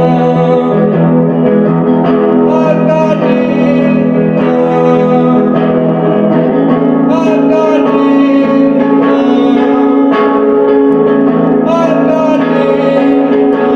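Music: dense, sustained chords over a steady low drone, with a few wavering higher notes.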